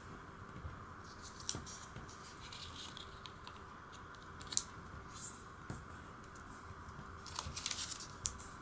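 A small square of origami paper being folded and creased by hand on a wooden table: scattered rustles and short scratchy strokes as fingers press and smooth the folds, with a quick run of them near the end, over a steady faint hiss.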